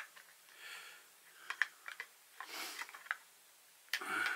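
Faint, scattered plastic clicks and soft rustling as a DJI Osmo Pocket camera is handled and pushed into its small plastic case, with a brief hum of the voice near the end.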